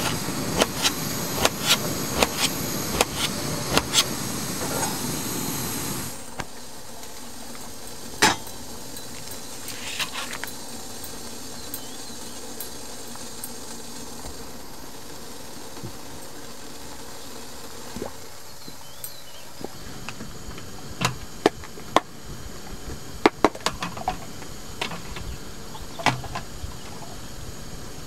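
Camp breakfast cooking: a gas stove burner runs with a steady rush under clicks and clinks of cookware, and cuts off about six seconds in. After that, scattered light clicks and taps of handling utensils and packaging.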